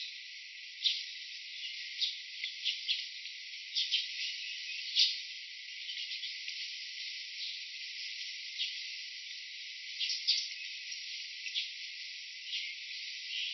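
Steady high insect buzz with short, sharp chirps or clicks breaking through every second or so. Only the high part of the sound is present.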